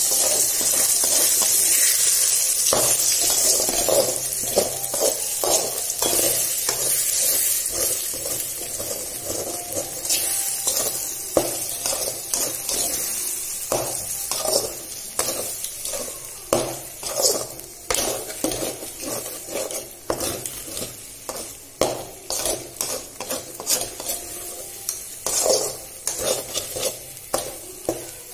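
Eggs sizzling in hot oil in a metal kadai while a metal slotted spatula scrapes and knocks against the pan, scrambling them. The sizzle is strongest at first and fades over the first several seconds. After that the quick, repeated spatula strokes stand out.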